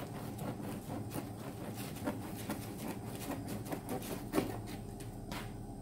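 Knife sawing through a warm, crusty gluten-free millet-and-seed loaf: a run of short crunches and scratchy rasps as the crust breaks, one crunch louder about four seconds in.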